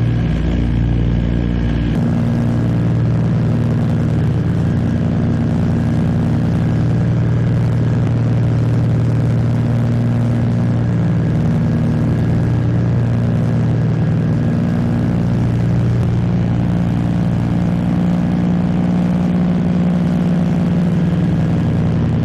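The Catalina flying boat's twin Pratt & Whitney R-1830 radial engines and propellers running steadily with a deep, even hum. The sound changes abruptly about two seconds in, losing some of its lowest rumble.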